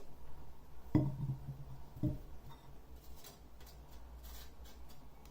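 Two light knocks, about a second apart, each with a short low ring: a utensil tapped against a dish while grated ginger is added to the tea. Faint small clicks follow.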